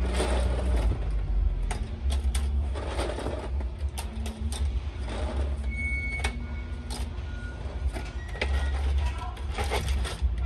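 Steady low machinery hum, with clicks and rustling as a plastic bag of small parts is handled over a cardboard box, and a short high beep about six seconds in.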